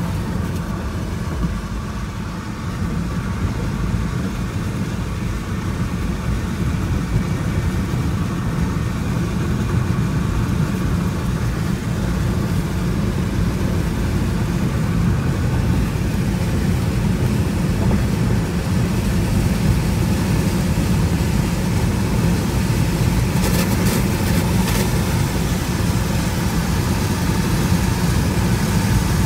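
Steady road noise inside a car cabin, driving at highway speed on a rain-wet road: a constant low rumble of engine and tyres.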